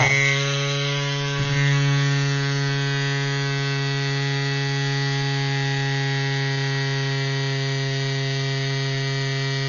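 CYCPLUS AS2 Pro battery-powered mini bike pump running with a steady electric hum, pumping up a 28 mm road-bike tyre from 61 psi toward its preset 80 psi cutoff.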